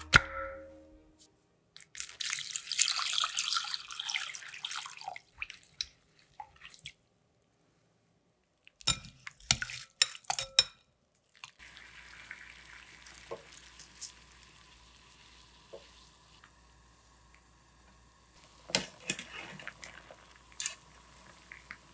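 Water running into a glass bowl over sliced potatoes in a stainless mesh strainer, rinsing the starch off the slices. A few sharp clinks of metal on glass follow near the middle, then quiet swishing and light taps as chopsticks stir the slices in the cloudy water.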